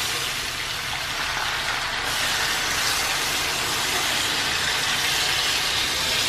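Chicken and seasonings sizzling in hot fat in an aluminium pot, turning to a louder, steady hiss about two seconds in as water is poured from a plastic bowl into the pan to start the sauce.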